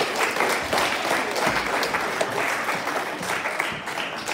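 Audience applauding: many hands clapping in a dense patter that begins to thin and die away near the end.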